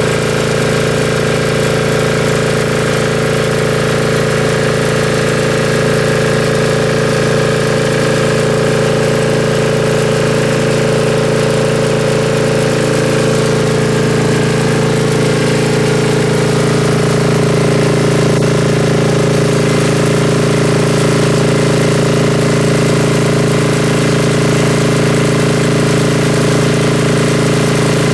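The diesel engine of an Ingersoll-Rand MC-2A rotary air compressor running steadily and loudly, driving the compressor. Its note eases slightly lower about halfway through.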